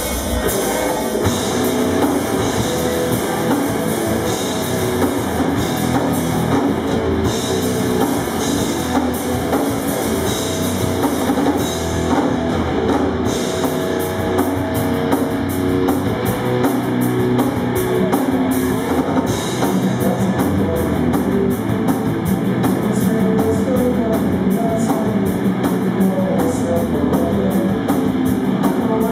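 Live heavy rock band playing loudly: electric guitars and bass over a drum kit, the drums settling into a steady driving beat about halfway through.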